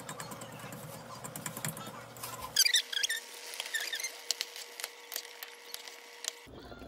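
Faint wet ticking from the mesh strainer over the pan. Then a run of sharp little pops, clicks and squeaks from thick red chile sauce bubbling around chunks of meat in the pot as a wooden spoon stirs it.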